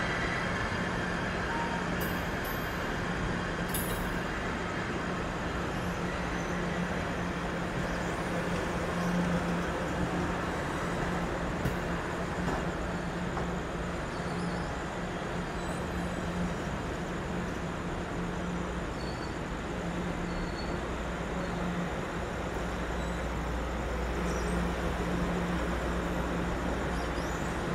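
Large diesel engine running steadily, a constant low hum over a wash of noise, with a deeper rumble growing a little stronger near the end.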